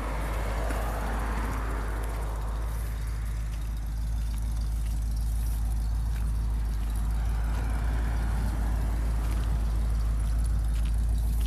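Short-bed pickup truck's engine running with a deep low rumble as it drives in, growing slowly louder toward the end, with a passing car's tyre noise at the start.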